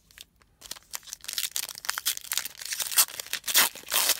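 Foil wrapper of a Panini Prizm baseball card pack crinkling and tearing as it is ripped open by hand. The crackling starts under a second in and gets louder toward the end.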